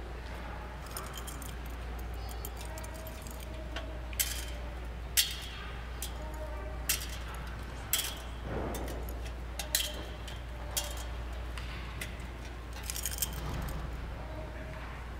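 Metal thurible swung on its chains to incense the Gospel book: three double swings, each a pair of sharp clinks about a second apart, over a low steady hum.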